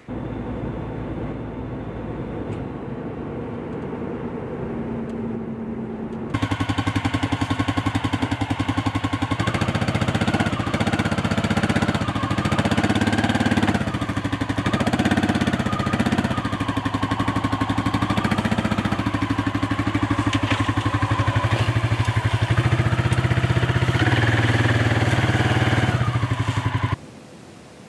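A steady engine idle, then from about six seconds a louder Suzuki ATV engine running and revving up and down as the quad climbs loading ramps onto a pickup bed. It cuts off abruptly near the end.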